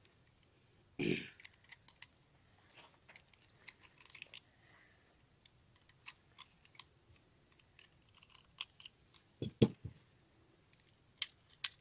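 9mm cartridges being pushed one by one into a Beretta 92FS-pattern pistol magazine by hand: faint, irregular small metallic clicks. There is a low thump about nine and a half seconds in, as a magazine or the pistol is set down on the table.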